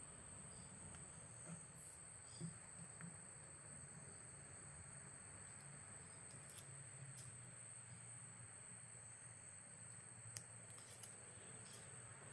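Near silence: a faint steady hum with a thin high whine, broken by a few soft ticks and rustles of paper being pressed onto a saw blade.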